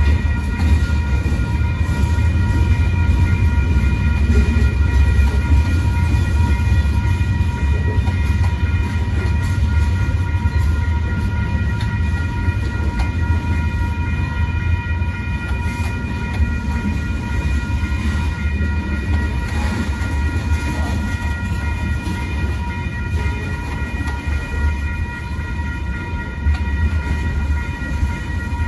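Freight train cars rolling through a grade crossing with a steady low rumble, while the crossing bell rings on at a steady high pitch.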